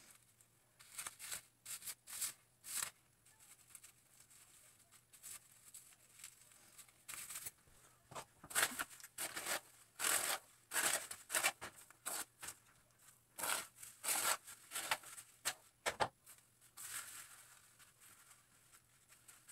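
Plastic highlighting cap crinkling and hair rustling as strands are pulled through the cap's holes: a run of short, scratchy rustles coming in clusters, busiest in the middle.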